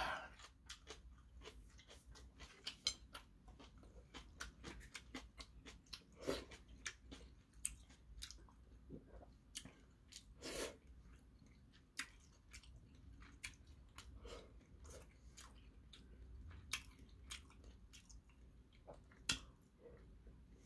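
Soft, close-up mouth sounds of a man eating seafood jjamppong: irregular wet chewing and smacking clicks, with a few louder mouthfuls.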